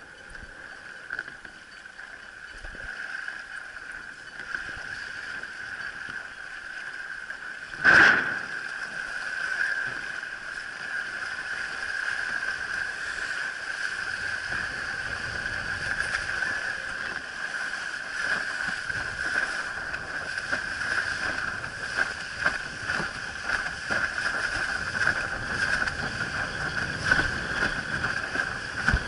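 Windsurfing board moving across choppy water: water rushing and splashing against the hull, growing louder as the board picks up speed, over a steady high whine. One sharp knock about eight seconds in.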